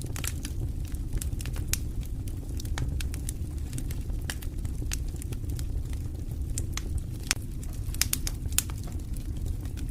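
Wood fire crackling, with irregular sharp pops and snaps over a steady low rumble of burning.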